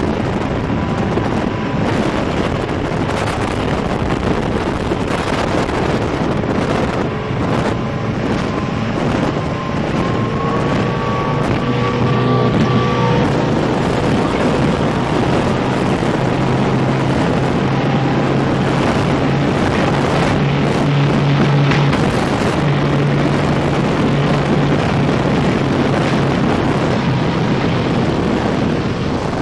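Wooden speedboat's motor running at high speed, a steady low hum under heavy wind rushing over the microphone.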